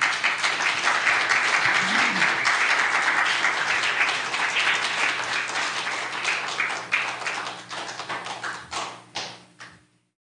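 Audience applauding, the clapping thinning out to a few last scattered claps near the end before cutting off abruptly.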